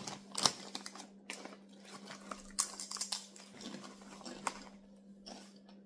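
Someone biting into and chewing potato chips: a run of irregular, crisp crunches, the sharpest about half a second in, then thinning out.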